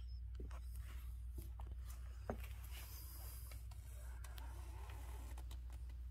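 Scattered footsteps and small handling taps on a concrete shop floor over a steady low hum.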